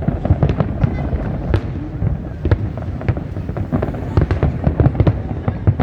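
Fireworks display: a dense, continuous barrage of sharp bangs, several a second, over a steady low rumble.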